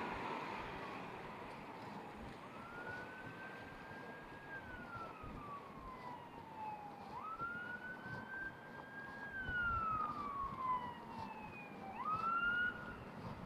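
An emergency vehicle siren on its wail setting: the pitch climbs quickly, holds, then slides slowly down, repeating about every five seconds, starting a couple of seconds in. Steady street traffic runs underneath.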